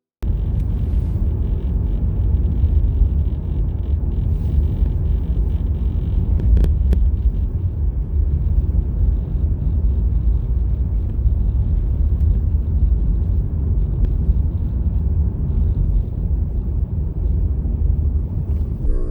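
Steady low rumble of a car on the move, heard from inside the cabin: road and engine noise, starting abruptly right at the beginning.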